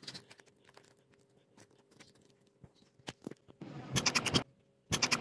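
An animal chewing candy: scattered faint crunching clicks, turning into quick runs of crunching near the end.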